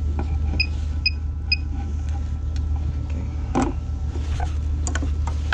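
Steady low machinery hum, with three short, high electronic beeps about half a second apart near the start and a few sharp clicks of handling later.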